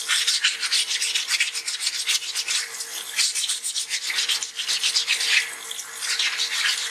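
Wet-sanding a stone dental model with 220-grit waterproof sandpaper by hand: quick back-and-forth rasping strokes, several a second.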